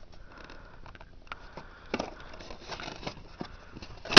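Scissors working at a plastic retaining clip on a product box: scattered small clicks and packaging rustles, then a sharp snap near the end as the clip is cut through.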